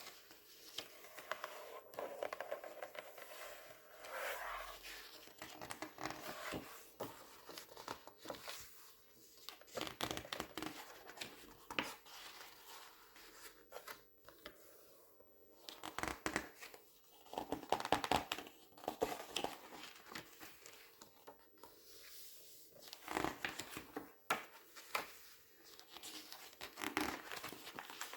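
Glossy magazine pages being turned and squeezed by hand: irregular crinkling and swishing of paper in uneven bursts.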